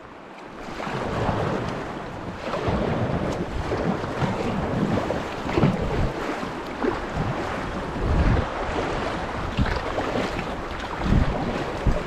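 River water rushing over a shallow, rocky riffle, mixed with kayak paddle splashes and irregular gusts of wind buffeting the camera's microphone.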